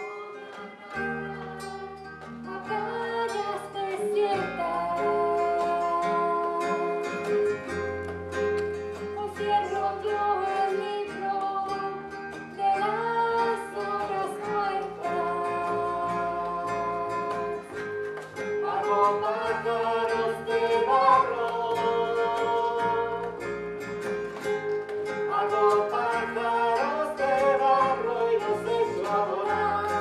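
Live band playing a pop-rock song: guitar, a steady bass line under it and a lead singer carrying the melody.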